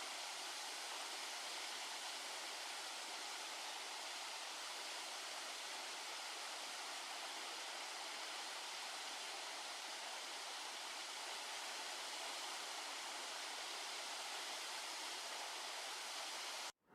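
Waterfall: the steady, unbroken rush of water from three falls about 10 m high, dropping side by side, with the sound mostly in the higher pitches.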